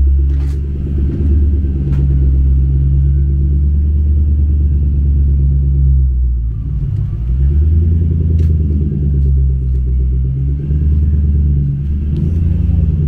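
Late 20-series Toyota Celsior's V8 rumbling at low revs through its quad-tip exhaust as the car pulls away slowly. The engine note dips and then rises again about halfway through.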